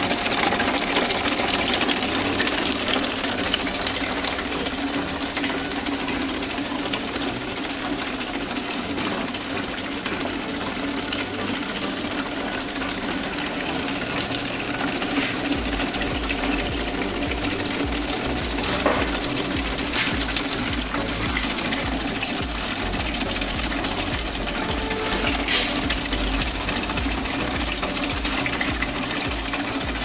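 Water pouring and splashing inside the plastic-bottle water wheel of a homemade washing-machine-motor generator, over a steady machine hum as the rig spins. A low rumble joins about halfway in.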